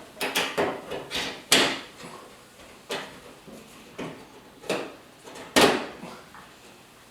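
A string of irregular knocks and clacks from hard parts being handled and set in place, loudest about a second and a half in and again near six seconds.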